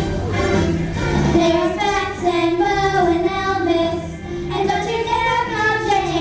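Children singing a rock-and-roll song over instrumental accompaniment.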